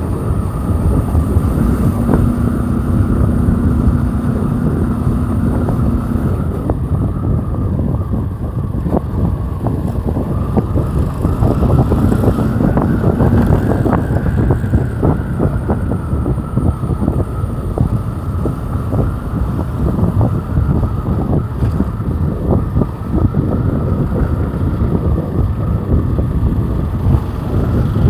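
Motorcycle engine running under way, its intake noise from the air filter loud and rough, with wind buffeting the microphone.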